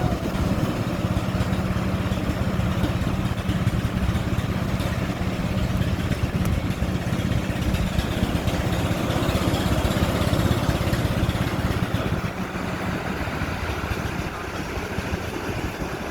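Fishing boat's engine running steadily with a low hum, under a broad rush of wind and water; the hum drops back near the end.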